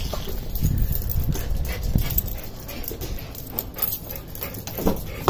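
A dog whimpering and panting, excited, over knocks and rumble from a hand-held camera being carried.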